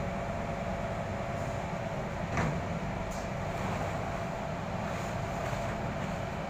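Steady machine drone with a low rumble and a faint steady hum, with a single knock about two and a half seconds in.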